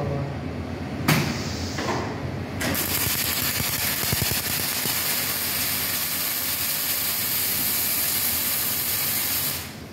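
Two-torch automatic linear welding machine arc welding: after a sharp clack about a second in, the welding arcs start about three seconds in as a steady hiss, then cut off suddenly near the end.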